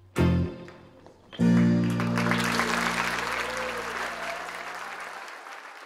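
Recorded guitar-band instrumental ending: one short, sharp chord, then a final long chord that slowly fades. Audience applause breaks out about two seconds in and carries on after the music.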